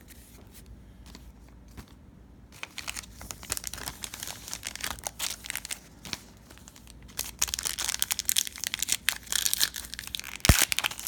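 Plastic trading-card pack wrapper crinkling and being torn open. It starts faintly about two and a half seconds in and grows louder over the last few seconds, with one sharp knock near the end.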